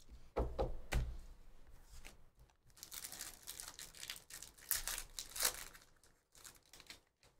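Upper Deck hockey card packs being torn open, their foil wrappers ripping and crinkling, with a few soft knocks in the first second. The loudest rips and crinkles come about three and about five seconds in.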